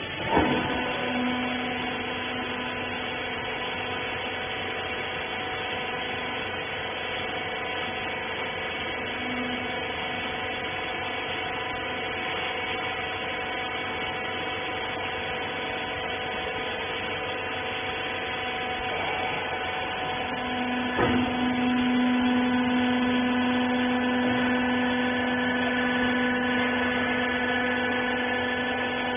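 Clothes baler machine running: a steady electric motor hum with a whine. A sharp clunk comes just after the start, and another about 21 seconds in, after which the low hum grows louder.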